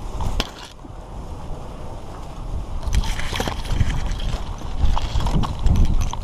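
Strong wind buffeting the microphone, with scattered rustling and clicking from clothing and gear being handled.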